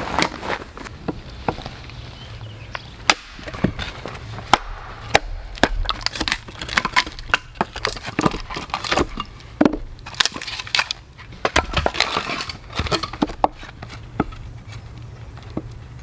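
Husqvarna hatchet splitting hardwood firewood on a stump chopping block: a quick, irregular run of sharp knocks and cracks of blade, wood and block, with splintering, dense through the middle and thinning near the end. The hardwood is hard to split.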